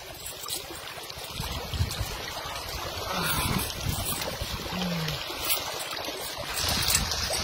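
Shallow stream water running and splashing over rocks, stirred by a man's legs and hands in the current.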